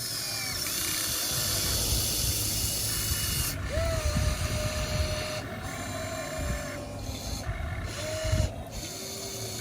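Small electric motors of a toy RC excavator whining, their pitch rising and then holding several times, over a rough scraping rumble. A loud steady hiss fills the first three seconds, then drops away.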